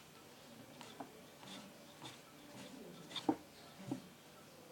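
Faint rubbing and scrubbing as small ceiling-fan parts, its washers, are cleaned by hand, with a few light clicks of the metal pieces, two of them near the end.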